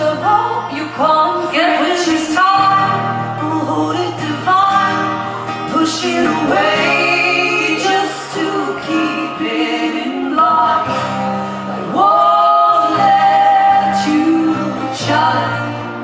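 Live folk song: sung vocals with long held notes over acoustic guitar accompaniment.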